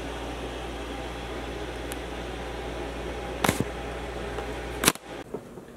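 Steady hum and hiss of room background noise, with two sharp clicks about three and a half and five seconds in; after the second click the hum drops away to a quieter room tone.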